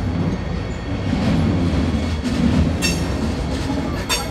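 Electric passenger trains rolling slowly over the tracks and points: a steady low rumble of wheels on rail, with two short, high metallic squeals, one a little before three seconds in and one about four seconds in.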